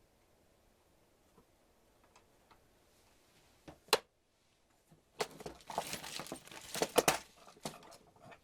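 Handling sounds of small hard objects: two sharp clicks a little before the middle, then about three seconds of quick clicks and rattling.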